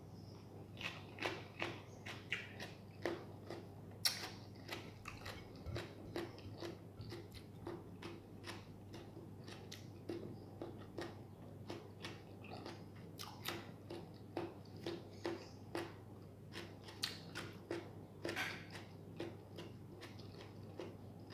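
A person chewing food with the mouth closed: a steady run of small crunchy clicks, about two or three a second.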